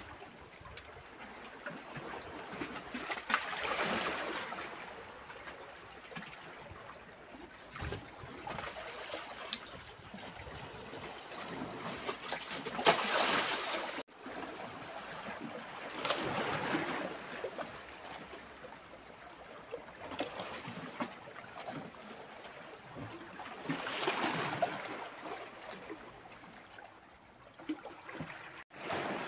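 Seawater sloshing and gurgling in a narrow crevice between shore rocks, surging in with a splash every few seconds and trickling back out between surges.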